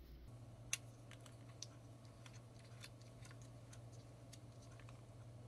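Faint scattered clicks and ticks of the air hose's threaded fitting being screwed onto a Vogma portable tire inflator, over a low steady hum.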